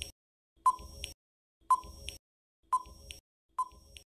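Electronic countdown-timer sound effect: four short, high beeps, about one a second.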